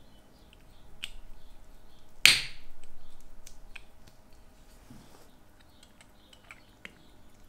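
Small clicks and taps of watch parts being handled with gloved fingers while a watch crystal is fitted onto a steel watch case. One sharp snap about two seconds in is by far the loudest sound.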